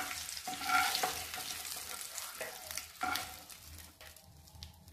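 A wooden spatula scrapes and knocks a few times in a non-stick frying pan as fried boiled eggs are lifted out, over a sizzle of hot oil that fades away in the last second or so.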